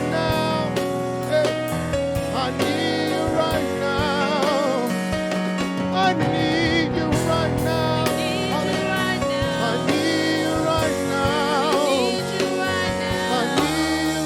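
Gospel music with voices singing over sustained chords and a steady beat.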